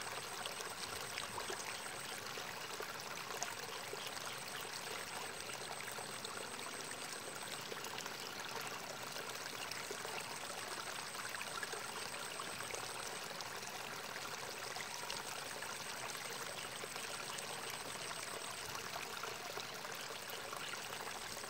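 Water trickling and running steadily in a small irrigation ditch beside rice paddies.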